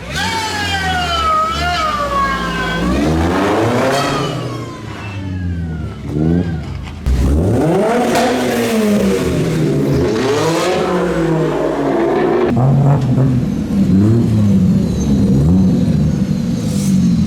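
Modified car engines revving hard again and again, the pitch climbing and dropping with each blip. It turns suddenly louder about seven seconds in.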